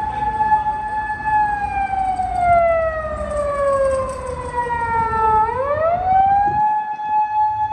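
Emergency vehicle siren wailing: it holds a steady pitch, slides slowly down over about four seconds, then sweeps quickly back up near the end and holds again. Low traffic rumble underneath.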